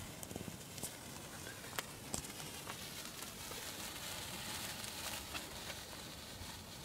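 Sparkler bomb burning: a faint steady fizz with scattered sharp crackles and pops, the clearest of them in the first couple of seconds.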